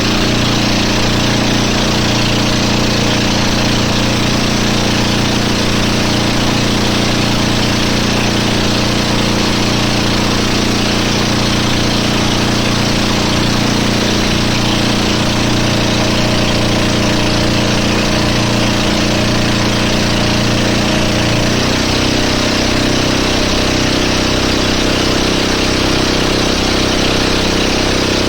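Motorboat engine running steadily under a constant rushing noise; its pitch drops a little about three quarters of the way through.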